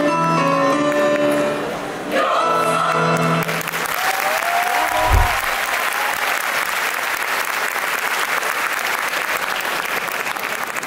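Mixed choir singing its closing phrase and holding the final chord, which ends about three and a half seconds in, followed by steady audience applause with a short thump about five seconds in.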